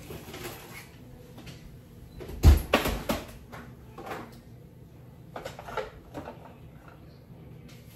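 Kitchen handling noises: a loud thud about two and a half seconds in, followed quickly by a few clunks, then scattered lighter knocks and clicks.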